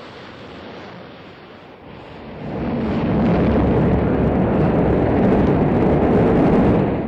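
Rocket engines at launch: a hissing rumble that swells sharply about two and a half seconds in to a loud, steady roar as the rocket lifts off.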